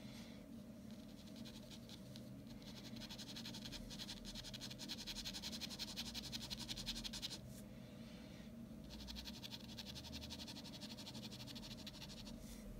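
Ballpoint pen scratching on drawing paper in rapid short shading strokes, in two long runs with a pause of about a second and a half between them, over a steady low hum.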